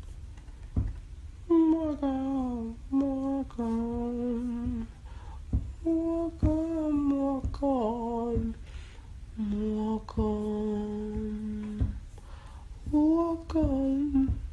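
A man humming a slow, wordless melody close to a phone microphone in a small room, in held notes that slide between pitches, phrase by phrase with short breaks.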